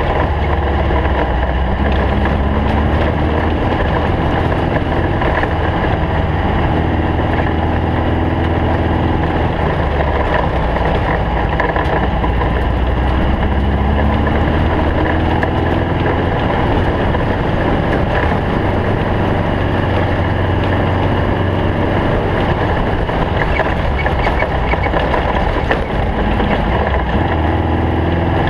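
Air-cooled Volkswagen flat-four engine of a stock-class Baja Bug race car running hard, its pitch rising and falling as it revs through the gears, with constant rattles and knocks from the car.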